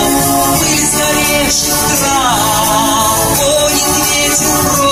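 Music with singing, loud and steady; a sung note slides down about two seconds in.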